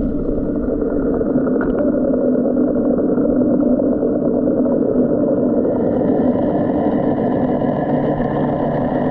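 Dolphin Nautilus CC Plus robotic pool cleaner's motor running steadily, heard through the water as a continuous hum with several held tones. A higher whine joins in about six seconds in.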